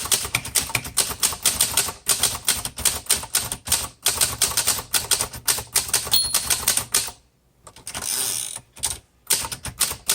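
Rapid typing on a 1958 Cole Steel travel typewriter, keys striking in quick, uneven runs. About six seconds in a short bell rings, and after a brief pause a longer sliding sound like a carriage return comes before the typing starts again.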